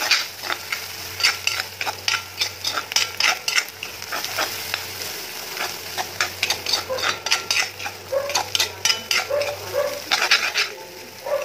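Steel ladle scraping and knocking against a black kadai as onions are stirred in hot oil, in quick irregular strokes over a steady frying sizzle.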